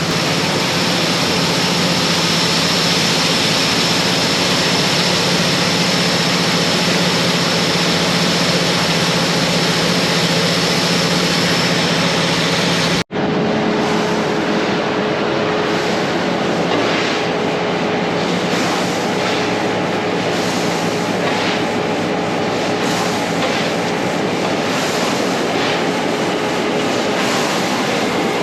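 Heavy farm machinery running steadily at working revs, with a steady engine drone. An edit about 13 seconds in switches to a second shot of machinery running, with a slightly different pitch.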